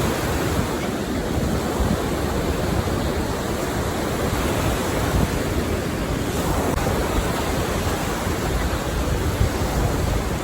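Lake waves washing onto the beach, a steady rushing noise, with wind rumbling on the microphone.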